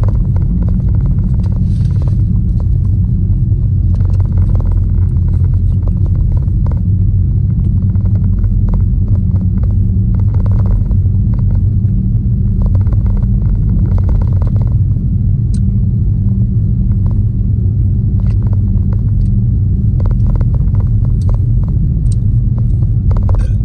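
Steady low rumble of an idling car engine heard from inside the cabin, with scattered short clicks and brief rustling over it.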